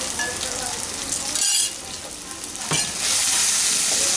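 Taro and coconut pastes sizzling in hot mustard oil in a nonstick kadai, with a brief louder hiss about a second and a half in. About three seconds in, a wooden spatula knocks and starts stirring and mashing the paste, and the sizzle grows louder and steady.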